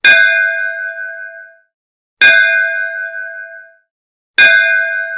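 A metal bell struck three times, about two seconds apart. Each strike rings out with several bright tones and fades away.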